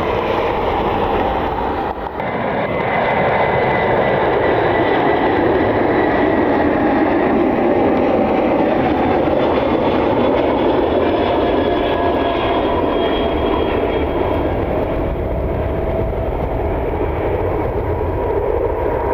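Jet airliner's engines running close by: a steady, loud rush with faint whining engine tones that drift slowly in pitch.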